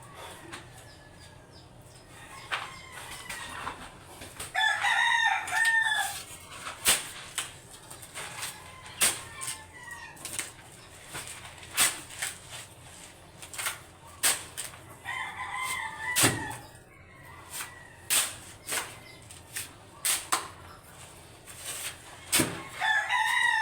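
A rooster crowing three times, each crow about a second and a half long, with sharp knocks scattered in between.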